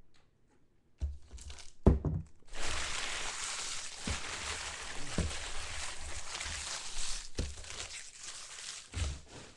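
Foil trading-card pack wrappers crinkling and tearing as they are handled and torn open, steady from about two seconds in, with a few dull knocks on the table.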